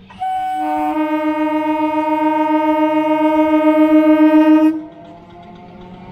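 Indian local train's horn sounding one long blast of about four and a half seconds. It starts on a single note and within about half a second becomes a steady chord, then cuts off sharply.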